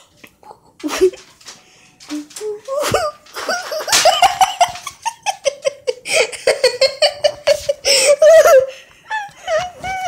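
A person laughing hard in long, high-pitched fits that start about three seconds in and run almost without a break until near the end.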